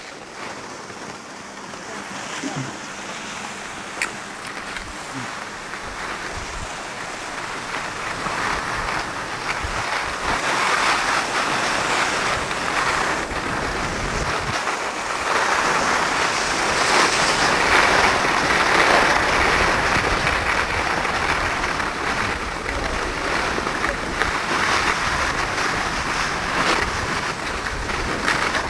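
Skis hissing and scraping over packed snow on a downhill run, mixed with wind rushing over the camera microphone. The noise builds over the first ten seconds or so as speed picks up, then swells and eases, with one sharp click about four seconds in.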